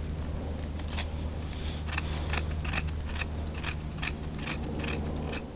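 Small campfire of kindling crackling, with about a dozen irregular sharp pops over a steady low rumble.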